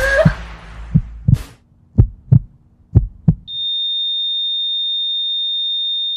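Heartbeat sound effect: a few slow double thumps over a low drone, then the drone cuts out and a steady high-pitched flatline beep takes over about three and a half seconds in, signalling that the heart has stopped.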